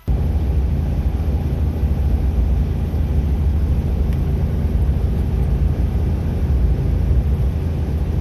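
Loud, steady low rumble from the Suzuki Jimny JA11, cutting in suddenly at the start.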